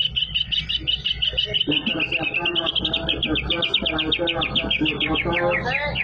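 Caged green leafbird (cucak ijo) singing a rapid trill of high repeated notes, about ten a second, in the style of a canary's song. A lower, pitched warbling sound joins beneath it about two seconds in.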